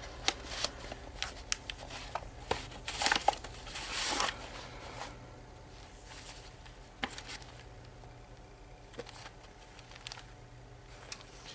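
Paper and cardstock being handled: the pages of a handmade altered file folder and its traveler's notebook insert turned and shifted, giving soft rustles and light taps. These are busiest over the first few seconds and come only now and then afterwards.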